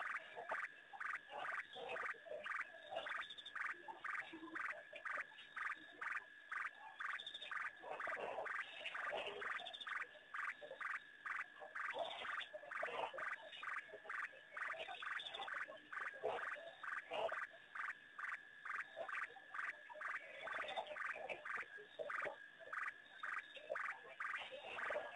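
A night chorus of frogs calling. There is a fast, regular run of pulsed calls at about three a second, with other calls overlapping.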